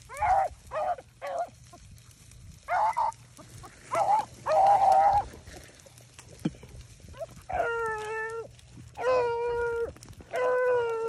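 Beagles baying as they run a rabbit's track: short choppy barks in the first half, then long drawn-out howls from a little past halfway. The baying is the pack giving tongue on a hot scent line.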